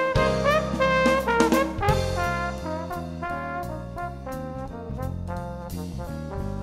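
Background music led by brass horns, with held notes and a few upward slides early on, over a stepping bass line.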